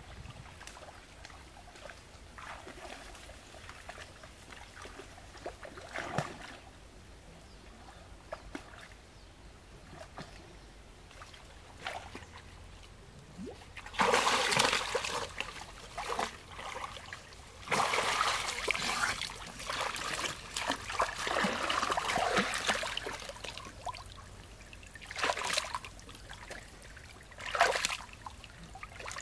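Muddy pond water splashing and sloshing as people wade through it and stir it with their hands. Faint at first, then loud spells of splashing about halfway through and again a few seconds later, with two short splashes near the end.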